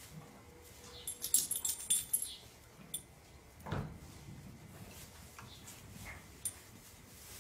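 A puppy gives a short falling whimper a little under four seconds in, and a fainter one about two seconds later. Earlier, a burst of light metallic jingling is the loudest sound.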